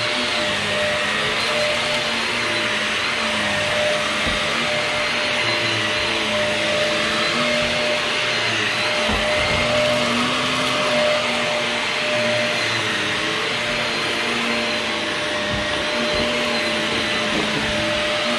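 Vacuum cleaner running steadily while pre-vacuuming carpet, a constant motor whine with a few light bumps as it is pushed along.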